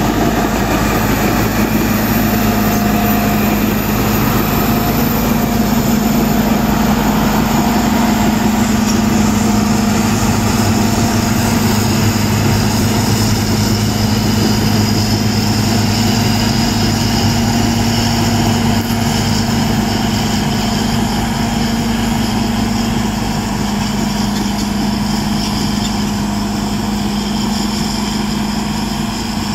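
Caterpillar D7R crawler dozer's diesel engine running steadily as the machine crawls through mud, growing a little fainter in the last third as it pulls away.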